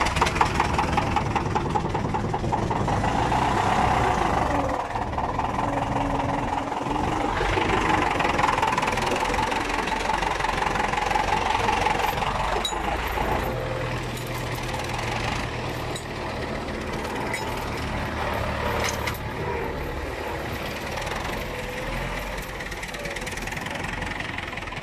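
David Brown 1490 tractor's four-cylinder diesel engine running steadily, heard close by with a fast knocking diesel beat; a little louder in the first half, then easing off.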